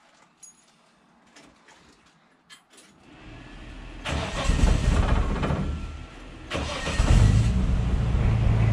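Holden VL Commodore's engine being started about three seconds in after a few faint clicks, picking up speed, dipping and rising again about seven seconds in, then running steadily.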